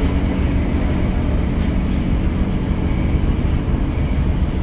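Tokyo Metro 02 series subway train running, heard from inside the car: a steady rumble of wheels on rail with a low motor hum.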